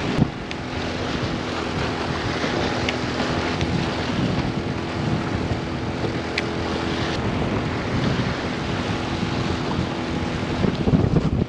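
Steady wind and water noise on the shore, with a low steady hum underneath and a few faint clicks.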